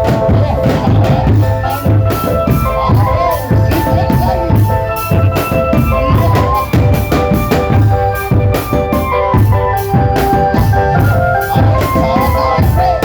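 Drumband music: rapid, dense beating on snare and bass drums with a pulsing low beat, under a melody of held notes.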